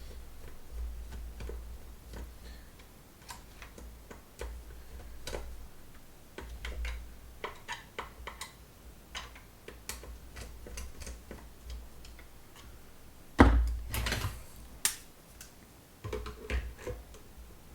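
Irregular small clicks and taps of a screwdriver working a Torx screw out of a plastic fan housing, with handling rumble and a louder knock about three-quarters of the way through.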